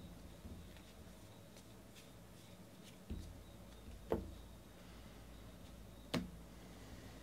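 Baseball cards being handled and sorted by hand: faint flicks and slides of card stock, with three soft knocks about three, four and six seconds in, the one near four seconds the loudest.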